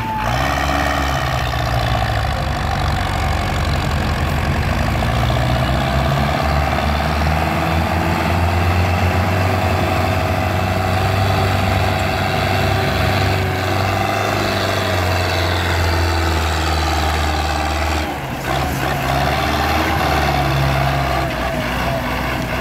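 Tractor diesel engine running hard under heavy load, pulling a trolley overloaded with sugarcane. The engine note dips briefly about 18 seconds in, then picks up again.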